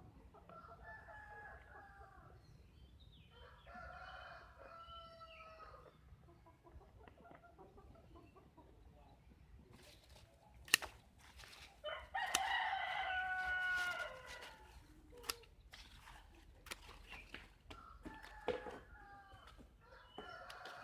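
Rooster crowing four times, each crow a drawn-out call that drops at the end, the loudest about twelve seconds in. A few sharp clicks fall between the crows, the loudest just before the third crow.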